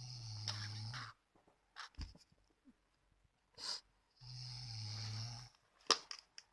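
Snoring: two long snores on the in-breath, each about a second long and about four seconds apart, with a low buzzing flutter. Short puffs of breath come between them, and there is a short sharp sound near the end.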